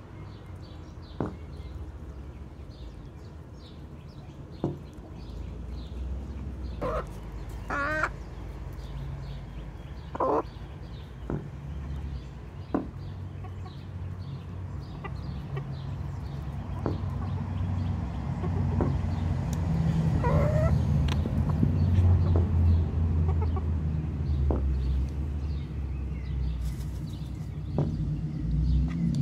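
Chickens clucking now and then, with a longer warbling call about eight seconds in and another about twenty seconds in, over a low rumble that grows louder in the second half.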